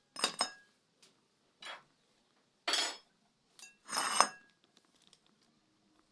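Metal cookware and dishes clinking and scraping: about five short knocks and scrapes with a little ringing, the loudest near the start and around four seconds in.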